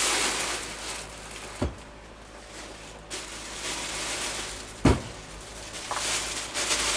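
Plastic packaging rustling as printer parts are unpacked, with two dull thumps, the second and louder one about five seconds in.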